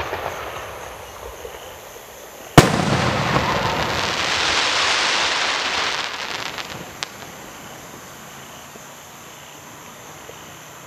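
A 6-inch crackling brocade crown shell bursting with one sharp bang about two and a half seconds in, followed by a few seconds of dense crackling from its stars that fades away, with a single late pop. At the start the crackle of the previous shell is dying away.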